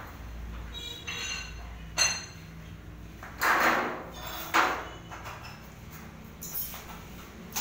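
Steel folding gate being moved by hand, its metal slats and frame clanking and rattling: a sharp metallic clank with a short ring about two seconds in, a longer rattle a second later, another sharp clank right after, and lighter knocks near the end.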